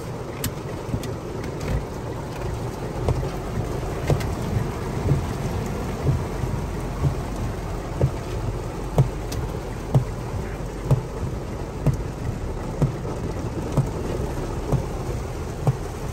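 Heavy rain falling on a car heard from inside the cabin, a steady hiss, with a soft thump about once a second from the windshield wipers sweeping back and forth.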